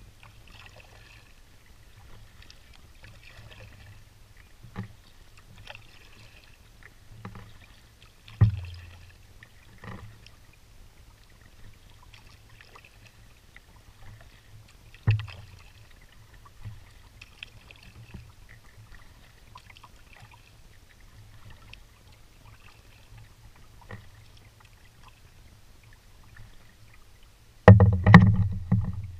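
Canoe being paddled on calm water: a low steady wash of water with scattered knocks of the paddle against the canoe, two of them sharp and loud. A louder, busier stretch of paddle-stroke sounds comes near the end.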